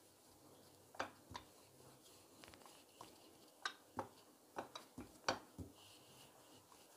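Wooden rolling pin rolling out dough on a board, with a string of short, irregular clacks and knocks as the pin rolls and touches down, the loudest a little past the middle.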